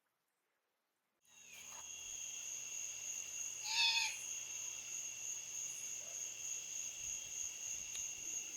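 After about a second of dead silence, a night chorus of insects fades in, a steady shrill trill. An owl calls once, a short note that rises and falls, about four seconds in.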